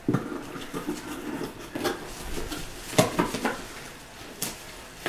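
A small cardboard box being opened by hand and its packing rustled, with a few sharp clicks and knocks, the loudest about three seconds in.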